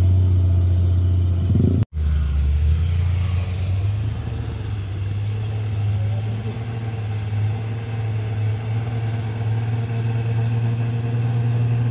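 Diesel truck engine running under heavy load up a steep grade, a steady low drone. It drops out for a moment about two seconds in, then goes on as a steady engine drone.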